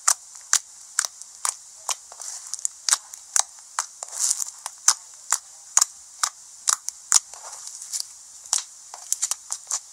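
Slime being worked by hand: a run of sharp clicking pops, about two a second, with softer squishing between.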